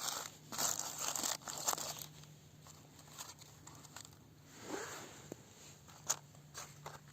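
Crinkling and rustling handling noise in irregular bursts, loudest in the first two seconds, with a short sharp click about six seconds in.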